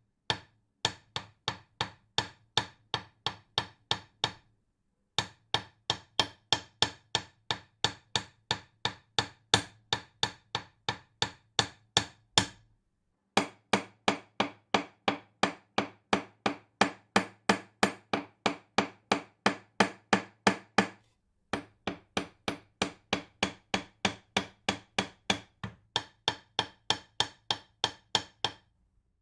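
Hammer striking a nail into wood in a steady rhythm, about three sharp blows a second, in four runs with brief pauses between them.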